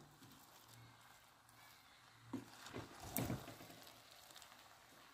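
Mostly near silence, with a few faint scrapes and taps about two to three and a half seconds in from a wooden spatula stirring cooked rice in an aluminium pot.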